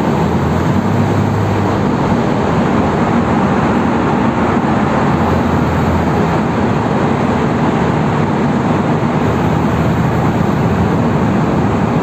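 Steady cabin noise of a Porsche 911 Carrera 4 cruising through a road tunnel: a low flat-six engine hum under a constant wash of tyre and road noise, heard from inside the car.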